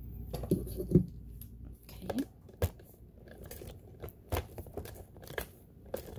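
Scattered sharp clicks and knocks of hands and the phone camera handling around a sewing machine, about six in all, the loudest about a second in.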